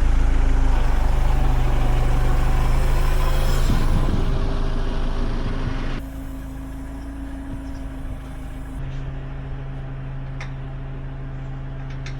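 A steady engine running, like a vehicle idling, with a low even hum; it drops noticeably in loudness about halfway through.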